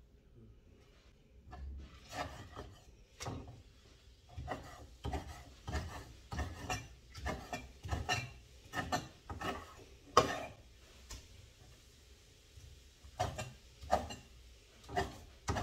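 Steel meat cleaver chopping meat on a wooden chopping board: repeated sharp chops, about two a second, starting about two seconds in, with a brief pause late on.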